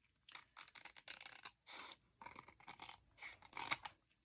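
Scissors cutting paper: a quiet, irregular run of short rasping snips.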